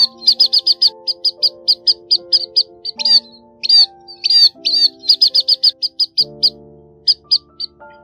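Scaly-breasted munias calling in sharp, high chirps. Single calls come less than a second apart, alternating with quick runs of about five a second, as a bird-trapping lure recording. Soft background music with held notes plays underneath.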